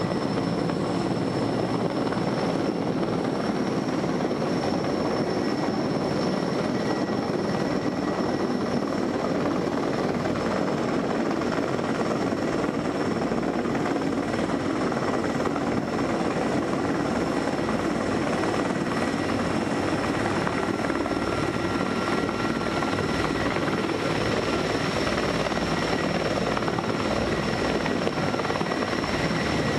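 Heavy-lift crane helicopter flying close by, its rotor and turbine noise steady and unbroken, with a thin high whine over it, heard from inside a car.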